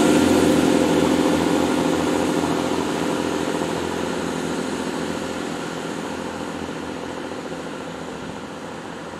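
Class 166 Networker Turbo diesel multiple unit's underfloor diesel engines running as the train draws away, the engine hum fading steadily.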